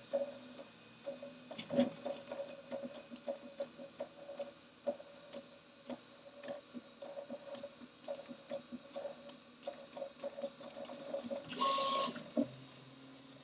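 Prusa 3D printer with its Multi-Material Unit running: stepper motors move in short, irregular bursts with light clicks. Near the end comes one louder, faster move lasting about half a second.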